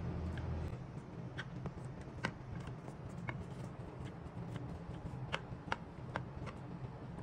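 A knife cutting through baked knafeh: irregular sharp crackles and clicks as the crisp shredded pastry and crushed pistachios give way under the blade, a few of them louder, over a low steady hum.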